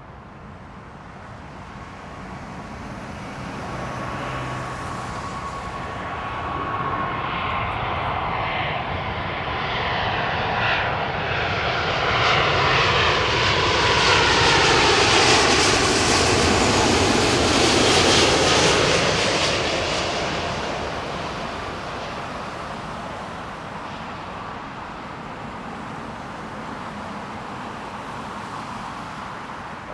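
Jet airliner on final approach passing low overhead to land. The engine noise swells to a peak about halfway through, then fades, and its whine falls in pitch as it goes by.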